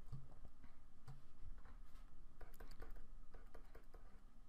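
Faint, irregular light taps and scratches of a stylus writing on a drawing tablet.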